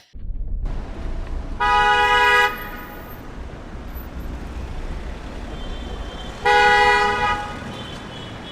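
Vehicle horn honking twice, each honk lasting about a second with a few seconds between them, over a steady low rumble.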